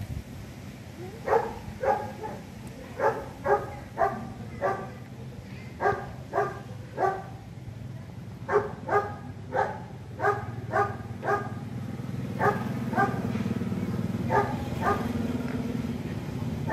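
Baby macaque calling over and over: short, high-pitched cries, often in quick pairs or threes. A steady low hum runs underneath and grows louder in the last few seconds.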